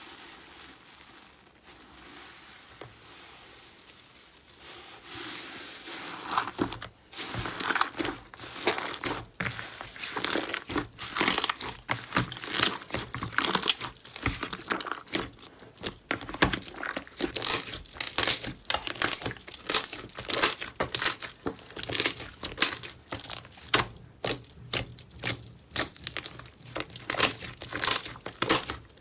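Slime being squeezed and pressed by hand, making crackling, popping sounds. It starts soft and turns into dense, irregular crackling after about six seconds.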